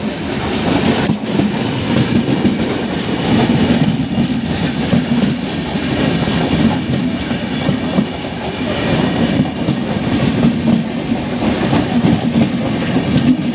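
Passenger coaches of a Bangladesh Railway train passing close by, with a steady, loud rumble of wheels running on the rails.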